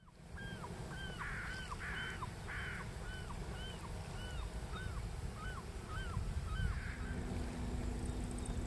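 Birds calling over the shore: a steady series of clear, arched calls about every half second, mixed with a few harsh, raspy calls. A low rumble runs underneath, and a steady low hum starts near the end.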